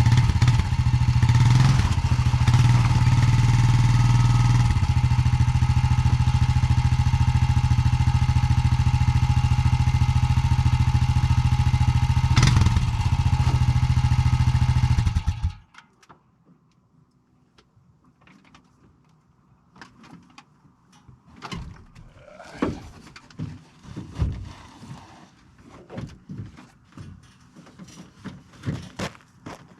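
A vehicle engine running steadily, then cutting off abruptly about halfway through. After it stops, there are quieter, irregular knocks and clatter.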